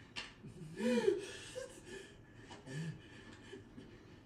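A few short, wordless vocal sounds and breaths, the loudest about a second in and a lower one near three seconds.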